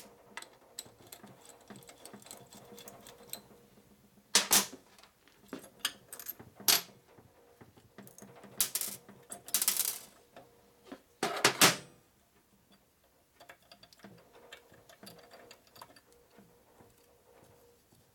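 Small steel engine parts clinking against each other and on a steel workbench as they are handled by hand during assembly of a Harley knucklehead crankcase. There is a sharp clink about four and a half seconds in, another near seven, a run of rattling around nine to ten seconds, and the loudest clatter around eleven and a half seconds.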